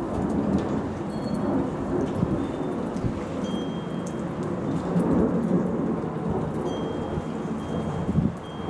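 Rolling thunder rumbling on without a break, swelling about one second in and again about five seconds in, with a sharper jolt near the end. Steady rain patters underneath.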